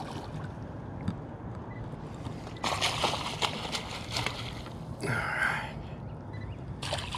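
A hooked largemouth bass thrashing and splashing at the water's surface beside the boat as it is brought to the landing net: a few bursts of splashing and sloshing, the longest about a third of the way in.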